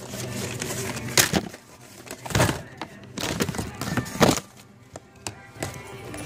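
Several sharp knocks and rattles as a shopping basket is grabbed and handled, with music playing underneath.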